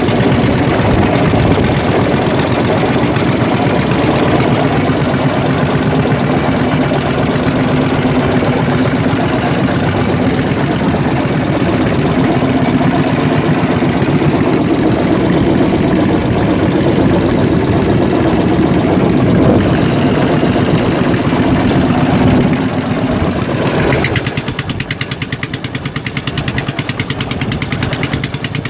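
Fishing boat's engine running steadily with an even pulsing hum, then throttled back to a quieter, lower running about 23 seconds in.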